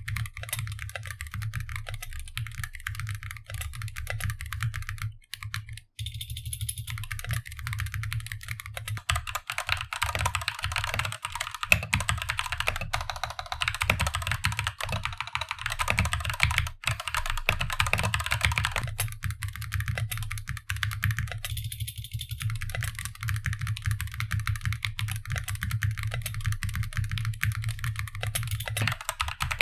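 Continuous fast typing on a custom mechanical keyboard with Gateron linear switches: a dense run of keystroke clacks. The typing breaks off briefly about five or six seconds in, then resumes with a brighter, more clicky character.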